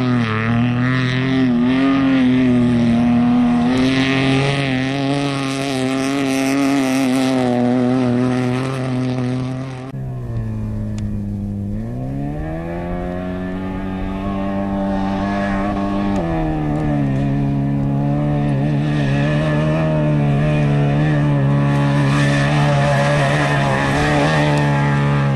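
Off-road race vehicle's engine running loud at high, steady revs. About ten seconds in the pitch drops and then climbs back, and it holds steady again for the rest of the time.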